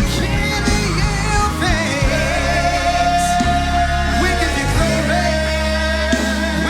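Live praise-and-worship music: a band with steady bass and keyboard chords under a singer holding long notes with vibrato.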